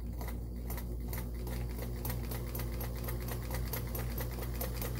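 Sears Kenmore 1802 sewing machine sewing a dense satin zigzag stitch (widest zigzag, very short stitch length). The motor runs steadily and the needle clicks rhythmically, picking up pace over the first second or two.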